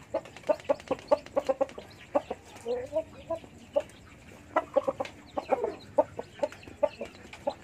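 Broody Bangkok game hen clucking over newly hatched chicks: quick runs of short, low clucks with an occasional drawn-out note.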